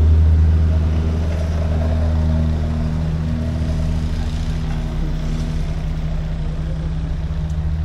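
Motor vehicle engine running at steady low revs, a low even hum that eases off slightly in loudness.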